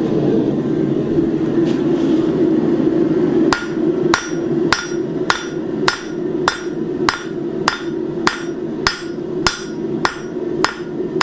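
Hammer blows on hot steel over an anvil: the flat face of a blacksmith's hammer thins the edges of a forged leaf. The blows start about three and a half seconds in and come in a steady rhythm of nearly two a second, each one ringing. A steady rushing hum runs underneath.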